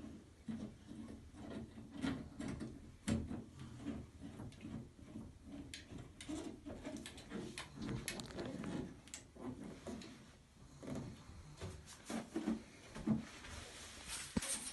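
Irregular clicks, knocks and rattles of hand-handled hardware, typical of unscrewing and fitting a shower head.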